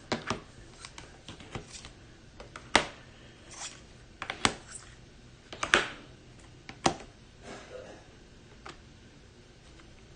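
Trading cards being handled and set down on a table: an irregular string of sharp clicks and taps, the louder ones a few seconds in.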